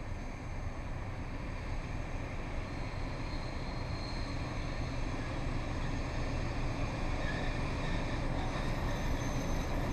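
A pair of class 742 diesel-electric locomotives running under power while hauling a freight train. Their diesel engines make a steady low drone that grows gradually louder as they approach.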